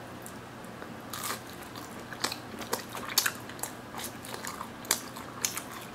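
A person biting into and chewing crispy naan bread topped with melted mozzarella and tomato sauce, close to the microphone. Irregular sharp crunches and crackles begin about a second in.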